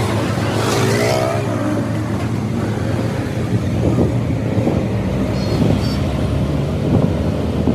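An engine running steadily, with a few short knocks over it, the loudest about seven seconds in.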